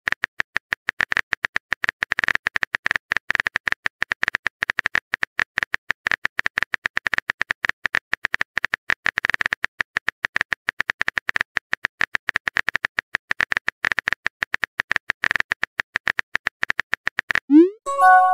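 Typing sound effect from a chat-story app: a long, dense, irregular run of sharp keyboard clicks. Near the end it stops and a short rising pop sounds as the message is sent.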